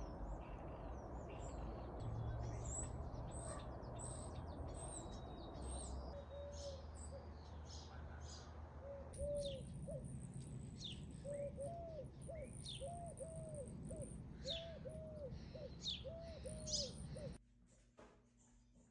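Several songbirds chirping, with a lower call of short notes repeated over and over from about six seconds in, over a steady low background hum. Near the end the sound drops suddenly to quiet room tone.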